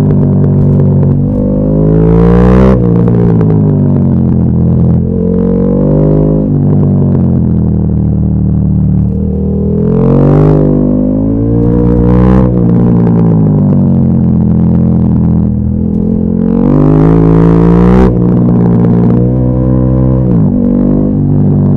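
KTM 1290 Super Duke R's 1301 cc V-twin engine pulling hard and backing off, its pitch climbing and dropping again and again. It rises to four loud, sharp peaks along the way.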